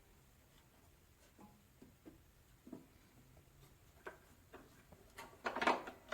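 Faint, scattered knocks and clicks of things being handled, then a louder clatter of several knocks with a brief ringing about five and a half seconds in. The bandsaw is not running.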